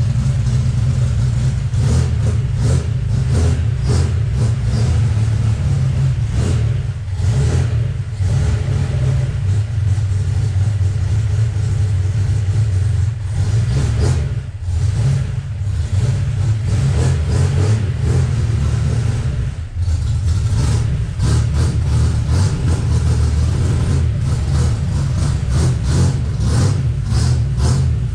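Chevrolet Opala Gran Luxo's engine running with a deep, steady exhaust rumble as the car is driven slowly out and back, its level dipping briefly a few times. The engine is still warming up after the car stood for about 20 days.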